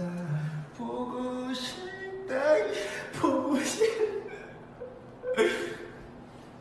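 Young men singing a few lines with no accompaniment, one of them breaking into laughter midway.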